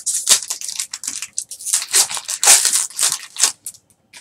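Foil wrapper of a 2013 Bowman Chrome baseball card pack torn open and crinkled by hand: a run of sharp, crackly rustles that stops about three and a half seconds in.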